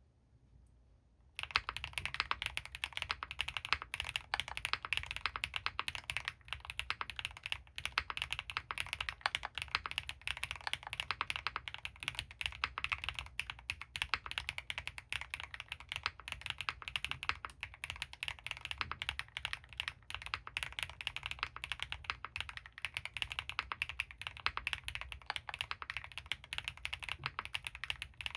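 Continuous fast typing on an Owlab Mr.Suit custom mechanical keyboard with lubed Gateron Baby Raccoon linear switches, a polycarbonate plate and GMK keycaps, starting about a second and a half in.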